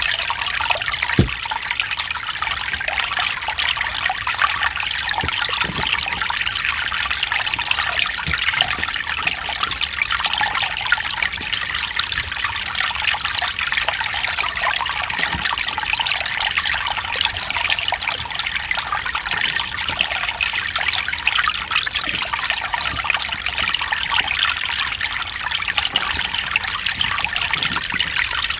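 Mountain stream flowing and trickling over rocks: a steady rush of water with small splashes.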